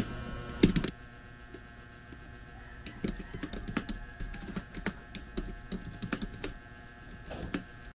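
Typing on a computer keyboard: irregular clicks of keys being struck, with a louder burst of keystrokes just under a second in, then a steady run of quicker typing from about three seconds on.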